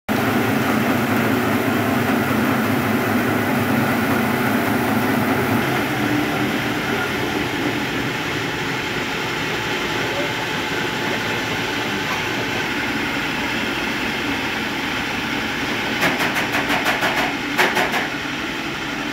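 Rice mill machinery running: a steady mechanical drone from the motors and milling machines. About three seconds before the end comes a short, fast run of rattling clicks.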